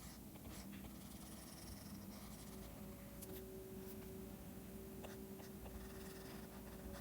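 Faint scratching of a stylus pen tip on a drawing tablet in short strokes.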